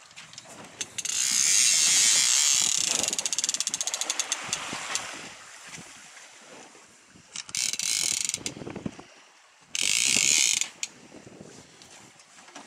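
Fishing reel's drag ratcheting as a hooked shark pulls line off. A long buzz starts about a second in and slows into separate clicks, then two short buzzes follow later.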